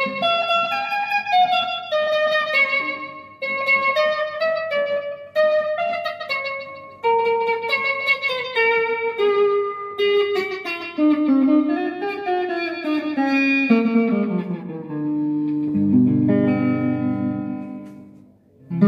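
Electric guitar playing a melodic single-note solo that follows a song's tune, moving between positions on the neck. About halfway through, the line runs down in pitch to low notes, which die away shortly before the end.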